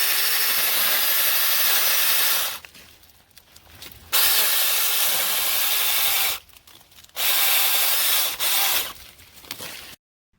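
Cordless electric mini chainsaw cutting wood in three runs of about two seconds each, with short pauses between them.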